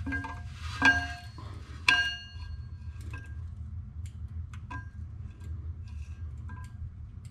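Metal clutch plates of a twin-disk clutch clinking and ringing as they are handled and fitted onto the flywheel. Two sharp clinks come about one and two seconds in, then lighter taps and ticks, over a steady low hum.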